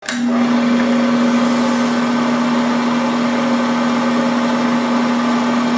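Film projector running: a steady mechanical whir with a constant low hum.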